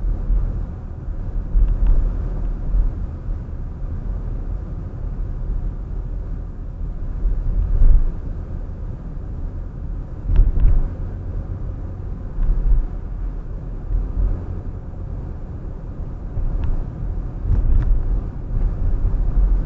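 A car in motion: a steady low rumble of road and engine noise that swells now and then, with a few faint clicks.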